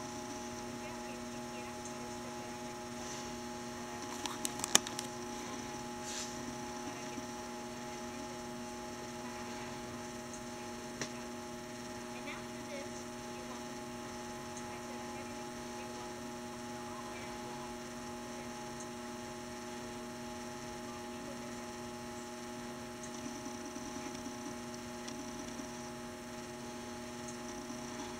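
Steady electrical mains hum on the recording, with a quick cluster of sharp clicks about four to five seconds in and a single click a few seconds later.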